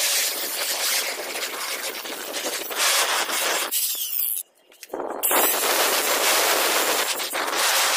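Angle grinder with a flap disc grinding rust off a steel cleaver blade, a steady abrasive rasp. It breaks off for about half a second just past the middle, then grinds on.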